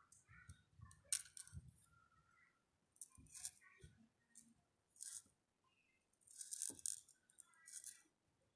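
Loose seed beads rattling in a divided tray as fingers and a needle pick through them, in about five short bursts.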